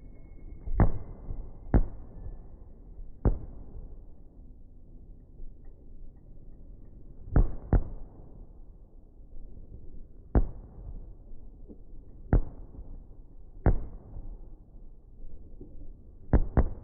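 Firework bangs: about ten sharp reports at irregular intervals, two of them coming in quick pairs, each trailing off in a short rumble.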